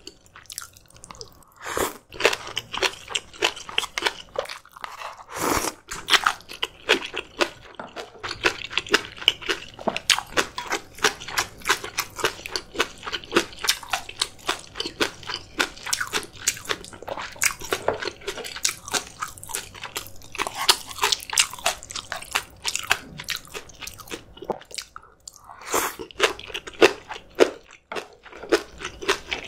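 A person eating close to the microphone: steady chewing with many sharp, rapid crunches, pausing briefly twice.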